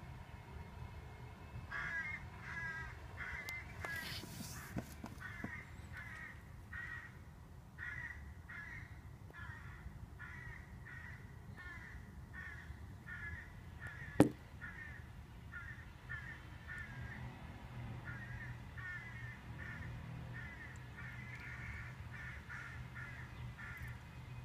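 Hooded crows cawing in short calls, repeated about twice a second. A single sharp knock about fourteen seconds in is the loudest sound.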